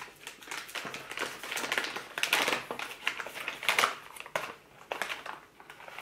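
Crinkly plastic chip bag being torn open and handled, an irregular crinkling and crackling that is loudest a couple of times in the middle.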